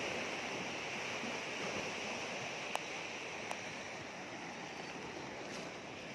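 Steady wash of sea surf, with two short faint clicks near the middle.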